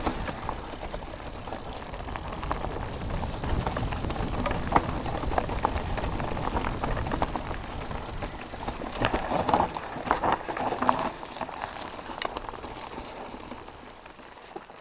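Mountain bike descending a rough dirt-and-stone singletrack. Wind buffets the helmet camera's microphone in a steady low rumble, while the tyres crunch over the trail and the bike rattles over bumps. A burst of sharper knocks and rattles comes about nine to eleven seconds in, and the sound eases off near the end.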